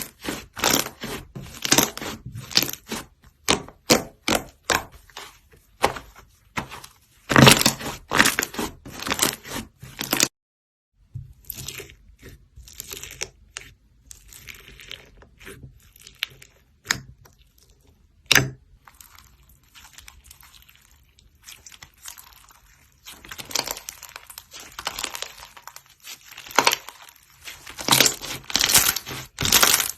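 Slime being squeezed and poked by hand, giving quick crackling clicks and pops. There is a short silent break about ten seconds in, then quieter, sparser handling, and the dense crackling returns near the end.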